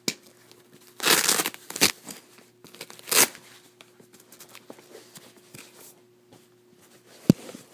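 Hook-and-loop (Velcro) strap on a fabric glove-shaping case ripped open: a long rip about a second in, a short one just after, and another about three seconds in. A leather baseball glove is then handled and pulled out, with a single sharp click near the end.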